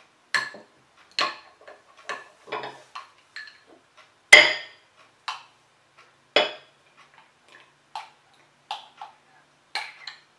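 A spoon clinking and scraping against a glass jar as thick homemade sunscreen cream is stirred and then scooped out into a small glass jar. A series of separate clinks and knocks, the loudest about four seconds in.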